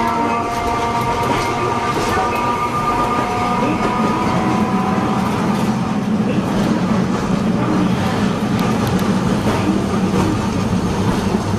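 Interior running noise of a vintage Hiroshima Electric Railway 570-series tram: a steady rumble of wheels on rail with scattered clicks and rattles. A set of high, steady whining tones fades away over the first few seconds, and a lower hum grows stronger about halfway through.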